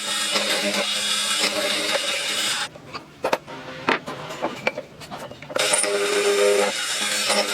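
An electric power tool working wood runs with a steady hum and hiss. It stops a little under three seconds in, a few knocks and clicks follow, and it starts again about two-thirds of the way through.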